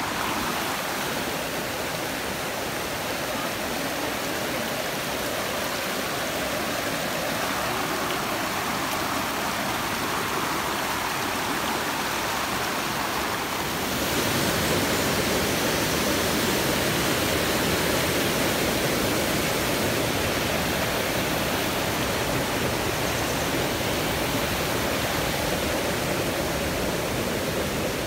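Waterfall and cascading stream rushing steadily, getting a little louder about halfway through.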